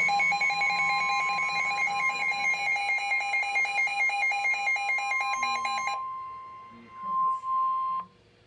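A weather alert radio's alarm beeping rapidly over the NOAA Weather Radio warning alarm tone, a single steady pitch, which signals that a warning such as a tornado warning is about to be read. The beeping stops about six seconds in, and the steady tone runs on until it cuts off near the end.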